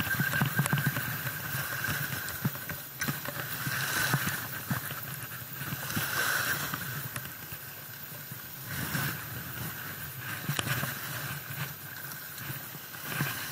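An Abu Garcia Ambassadeur 6500 C3 baitcasting reel is being cranked, winding line in with a faint steady whir. Small waves lap at the water's edge, swelling every few seconds.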